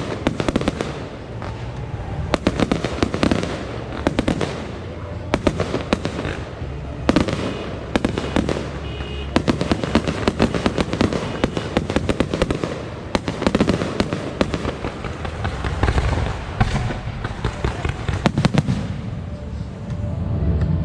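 Fireworks and firecrackers going off without a break: dense rapid crackling with louder bangs scattered through it.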